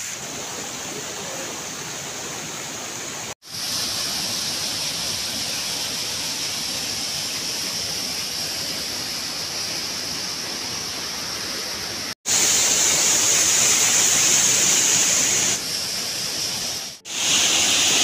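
Falling water of a waterfall and rocky stream: a steady, even rush with no separate splashes, louder from about two thirds in. It breaks off abruptly three times for a split second where clips are joined.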